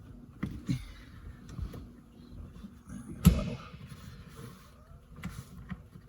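Hands working on a car's manual shifter assembly: scattered small clicks and knocks of parts being handled, with one louder knock about three seconds in.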